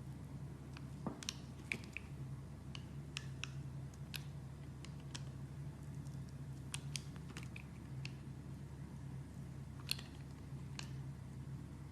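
Knife cutting into a bar of soap: irregular crisp clicks and crackles, a few a second, over a low steady hum.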